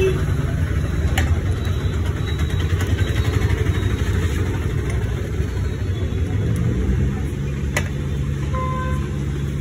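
Street traffic: a steady low rumble of motor vehicle engines, with a steady engine hum coming in about two-thirds of the way through.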